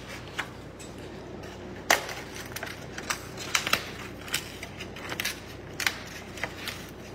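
Styrofoam takeout container and crinkle-cut fries being handled, crackling and creaking in irregular sharp clicks, the loudest about two seconds in.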